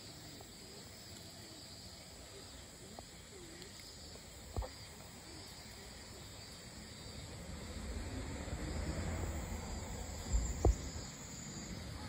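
Faint steady outdoor background hiss, broken by a short knock and later by two close knocks near the end, over a low rumble that builds from about two-thirds of the way in.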